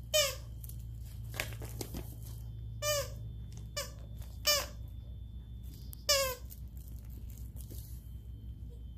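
Squeaker inside a plush dog toy squeaking as a puppy bites it: five short squeaks spread through the first six seconds, with a brief rustle of the plush about a second and a half in.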